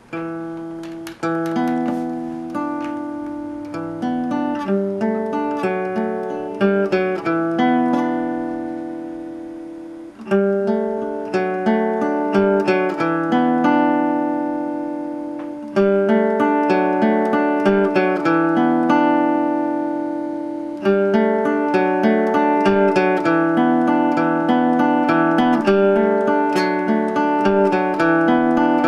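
Music: an acoustic guitar played fingerpicked, plucked notes and chords ringing out and fading, with the picking growing busier about two-thirds of the way in.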